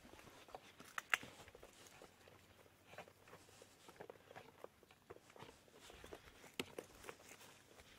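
Faint footsteps and scuffs of someone walking over stony ground, with two sharper clicks, about a second in and again near the end.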